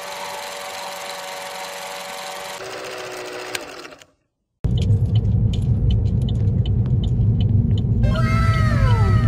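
Vintage film-projector whirring sound effect under a countdown leader: a steady rattling hum whose pitch drops before it cuts out about four seconds in. After a brief silence, intro music with a heavy bass beat starts, with falling sweep tones near the end.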